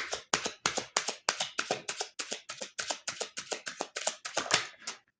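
A deck of tarot cards being shuffled by hand: a quick, even run of card slaps and clicks, about five or six a second, that stops about five seconds in.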